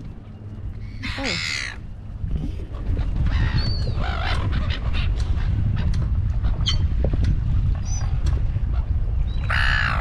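Silver gulls giving short, harsh squawking calls, a few times, over a steady low rumble of wind on the microphone.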